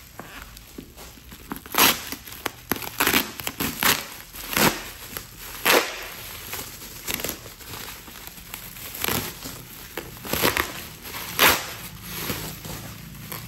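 Black bubble wrap being pulled apart and crumpled by hand, with irregular bursts of plastic crinkling and crackling.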